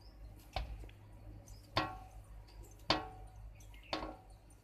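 Lumps of stiff flour dough dropped one at a time into a steel plate: four knocks about a second apart, each with a short metallic ring.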